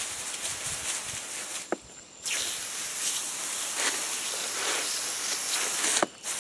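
Garden hose spray nozzle hissing as it sprays a fine mist of water, in two spells with a short break about two seconds in. It shuts off with a sharp click near the end.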